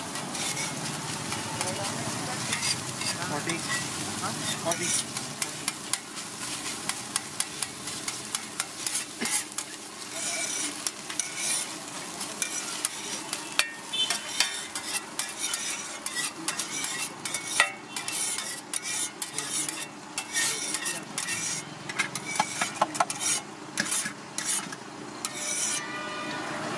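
Steel spatula scraping and pushing scrambled egg across a large flat griddle (tawa) into a steel bowl, with quick metal-on-metal scrapes and clinks over the sizzle of hot oil. The scraping strokes come thicker and faster in the second half.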